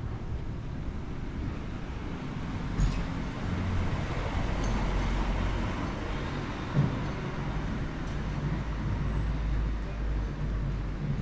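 Town-street traffic noise: a motor vehicle passing, its low rumble building about a third of the way in and easing off near the end. Two short knocks stand out, one early and one past the middle.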